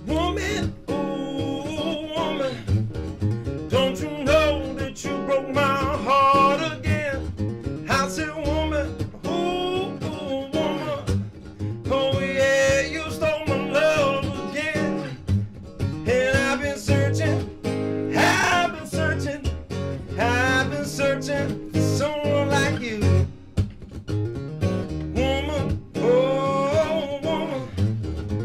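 Man singing a 12-bar blues over an acoustic guitar.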